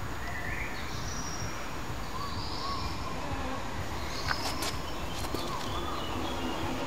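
Outdoor background ambience: a steady low hum of noise with faint, short bird chirps and a few light clicks around the middle.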